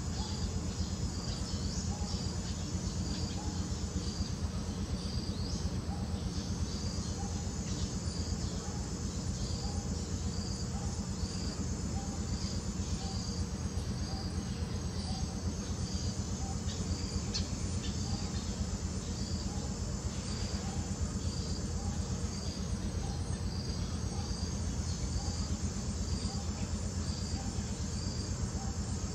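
Insects chirping in an even, unbroken rhythm over a steady low rumble, with a few faint high whistles now and then.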